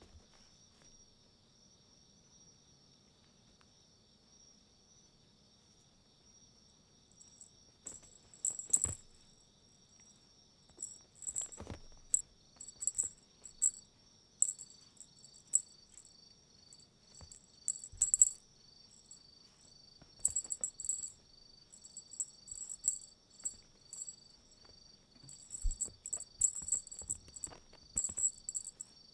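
Insects chirring steadily at a high pitch, joined about a quarter of the way in by loud, high chirps in quick clusters and then by a regular pulsing chirp about twice a second. A few soft thuds come from cats pouncing on the rug.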